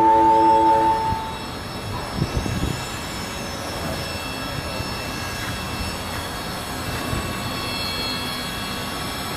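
A bright ringing chime fading out within the first second or so, then steady machinery running noise with several faint high, steady whines.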